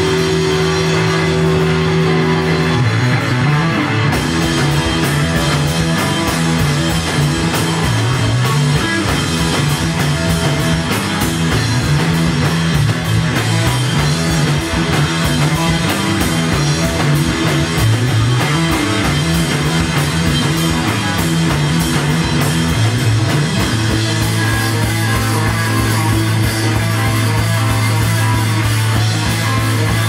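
Live rock band playing loudly, with electric guitar, bass notes and a drum kit, heard from the audience in a small club; the drums kick into a fast steady beat about four seconds in.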